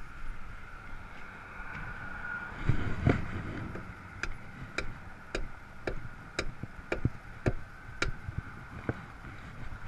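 Sharp, evenly spaced clicks about twice a second, starting about four seconds in, over a steady high-pitched hum. A low thump and rumble comes a little before that.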